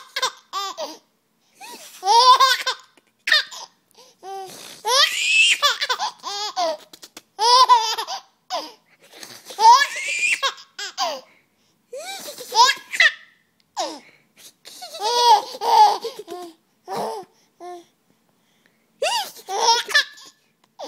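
A baby laughing hard in repeated high-pitched bursts, each up to about a second long, with short pauses for breath between them.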